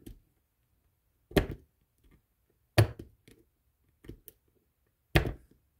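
Precision screwdriver tips knocking and clicking against the small metal body of a spinning reel while prying out a tiny retaining clip: four sharp knocks spaced roughly a second and a quarter apart.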